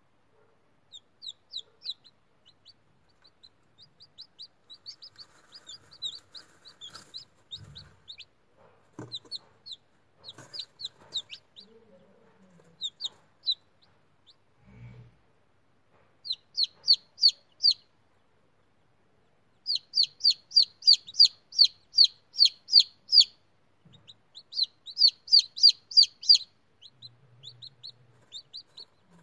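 Newly hatched chicken chicks peeping: runs of short, high cheeps, about three to four a second at the busiest, with pauses between runs. A few soft low thumps or rustles come in between.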